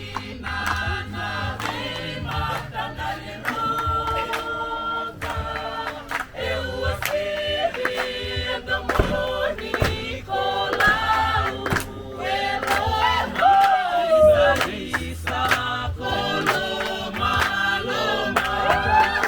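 A group of voices singing together, with sharp clicks scattered through the singing.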